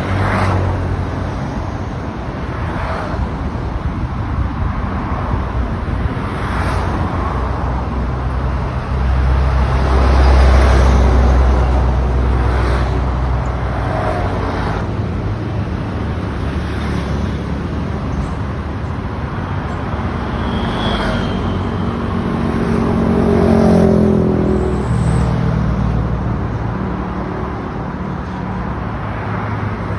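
Road traffic: motor vehicle engines running and passing, with a steady low hum that swells louder about ten seconds in and again near the end, where an engine's pitch rises.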